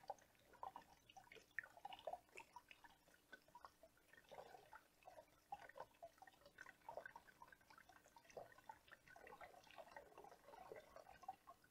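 Faint, irregular drips of water falling from an upturned clear plastic container through a funnel into a plastic bottle, the last of the water draining out.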